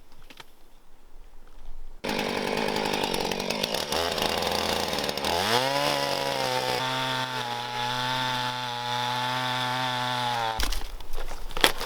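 Chainsaw engine running. It starts abruptly about two seconds in, rises in pitch as it is throttled up a few seconds later, holds a steady high speed, and stops abruptly near the end.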